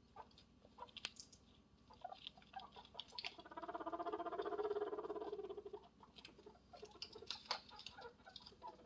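Guinea pig rumbling: a low, rapidly pulsing buzz lasting about two and a half seconds in the middle, the courtship call. Scattered small clicks and taps run around it.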